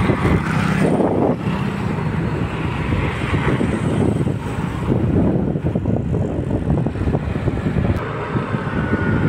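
Wind buffeting the microphone with engine and road noise while riding a motor scooter at speed.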